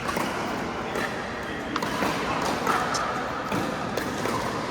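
Indoor pickleball court din: a steady mix of background voices with a few faint, sharp knocks of paddles hitting the ball.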